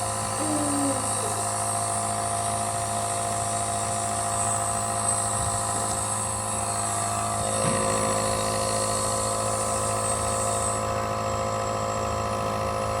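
A small electric compressor nebulizer running with a steady motor hum. Its pitch shifts slightly a little past halfway.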